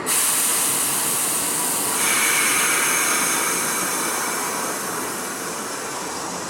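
Subway train at a station giving a loud, steady hiss that starts abruptly and turns brighter about two seconds in.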